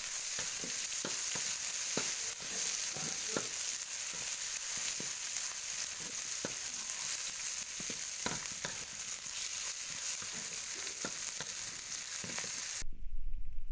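Chopped chillies, shallots and garlic sizzling in hot oil in a wok, stirred with a spatula that knocks and scrapes against the pan many times. The sizzle cuts off suddenly near the end.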